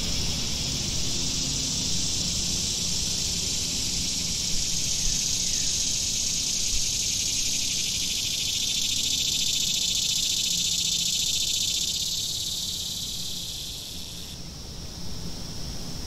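Cicadas buzzing in a steady, high-pitched chorus that eases off near the end, leaving a thinner, narrower drone.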